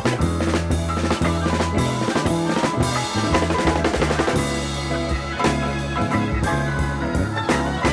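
Background rock music with a drum kit beating steadily under bass and guitar.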